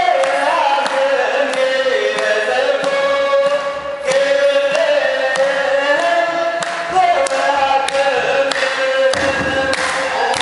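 Orthodox Tewahedo congregation singing a chanted hymn in unison, with steady hand clapping about twice a second. A fuller, deeper layer of sound joins near the end.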